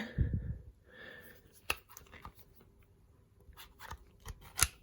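Thunderbolt Junior air pistol's cocking mechanism being worked by hand: a dull knock at the start, then light metallic clicks and scraping, with the sharpest click near the end.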